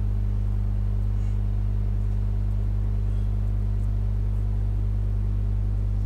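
Steady low hum, with a few faint light ticks.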